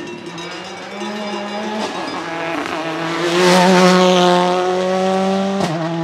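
Toyota Corolla WRC's turbocharged four-cylinder engine pulling hard through a gear as the car passes, its note rising slowly and loudest about halfway through. Near the end there is a sharp bang and the note drops a little, as at a gear change.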